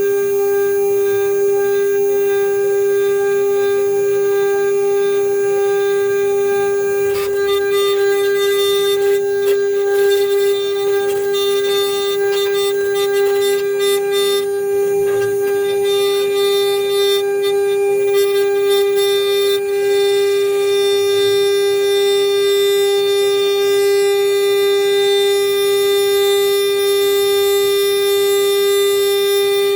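CNC router spindle running with a steady high whine while the bit mills a marine aluminum seal plate; a rough crackling from the cut comes and goes through the middle.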